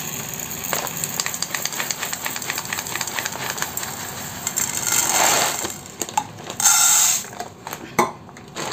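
Whole black urad dal (black gram) pouring from a plastic packet into a steel measuring cup, a dense rattle of small seeds on metal. About five seconds in the cupful is tipped into the pan, with a louder rush of seeds and a couple of sharp knocks.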